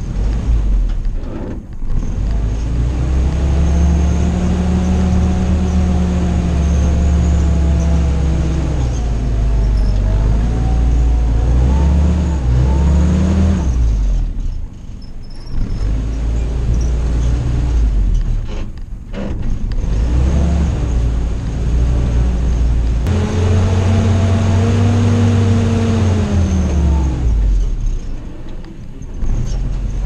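Willys CJ-2A jeep's four-cylinder engine working under load off-road, revving up and easing off several times as it climbs steep dirt piles. Its pitch rises and falls in long swells, dropping away briefly about halfway through and again near the end.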